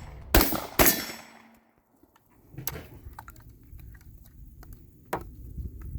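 Two gunshots about half a second apart, each ringing on briefly, followed by a couple of fainter metallic knocks a few seconds later.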